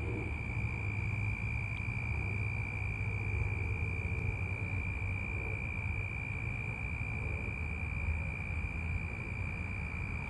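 Crickets trilling steadily in one unbroken high-pitched tone over a constant low rumble.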